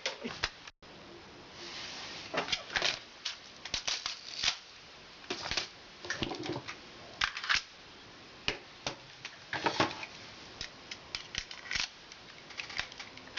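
Plastic airsoft pistol being handled and worked: scattered sharp clicks, rattles and short scrapes at irregular intervals, the gun's safety still on. A clunk right at the start as a rotary phone handset is hung up.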